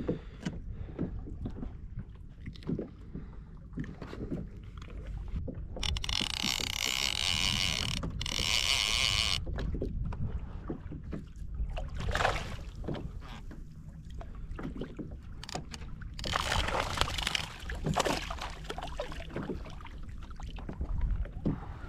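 Sea water lapping and splashing around a fishing kayak, with wind rumbling on the microphone. Louder hissing splashes come about six seconds in for about three seconds, and again about sixteen seconds in.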